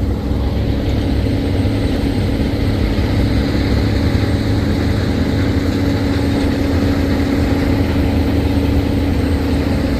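Heavy diesel engine running steadily at idle, with a constant low rumble and a steady hum.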